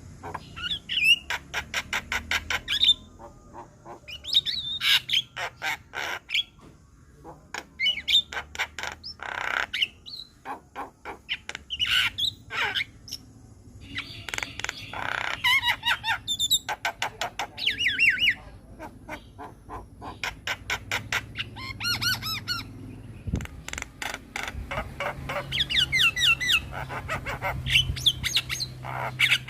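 Javan myna singing: phrases of fast rattling clicks mixed with harsh squawks and whistled, warbling notes, broken by short pauses. This is the full, varied song that keepers play as a tutor recording for captive mynas.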